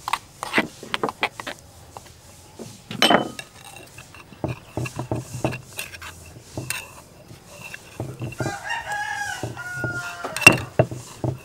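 A metal spoon clinks and a stone pestle knocks against a granite mortar in irregular sharp taps as a chili dipping sauce is stirred and pounded, with the loudest knock a little after ten seconds in. A rooster crows about eight seconds in.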